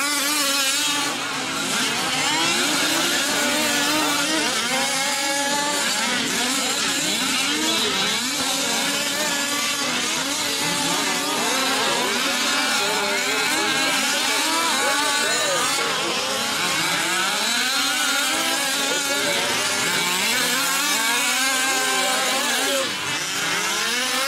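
A pack of 1/5-scale RC off-road race trucks, their small two-stroke gas engines revving up and down as they race. Many overlapping engine pitches keep rising and falling without a break.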